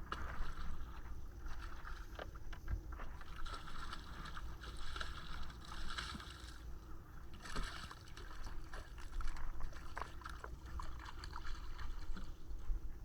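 Water moving and lapping around a fishing kayak, with scattered light knocks and clicks from the boat and gear.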